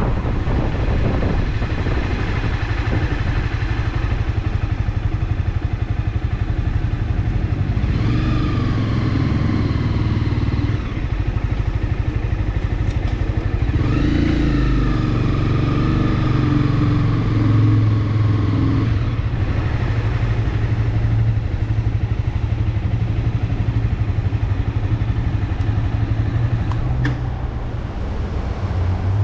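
Honda CBR300R's single-cylinder engine running under way, with rushing wind and road noise. Its pitch climbs twice, about eight and fourteen seconds in, as the bike accelerates.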